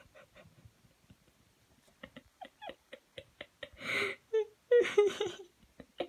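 A person giggling in short rapid bursts, getting louder about four seconds in.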